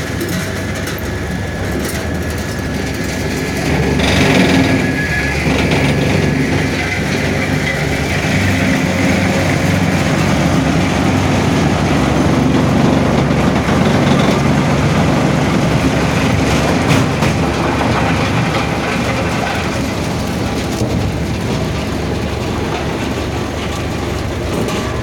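Wood chipper running steadily, a continuous machine hum with rapid clicking and crackling over it as logs and branches are chipped. It gets a little louder about four seconds in.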